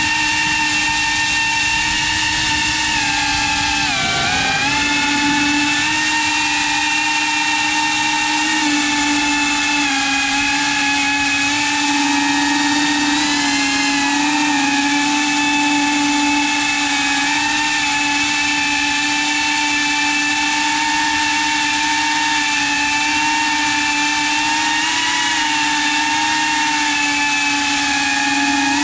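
iFlight Protek 35 FPV cinewhoop drone in flight: the steady whine of its motors and ducted propellers. The pitch dips briefly about four seconds in and rises and falls again a few times as the throttle changes.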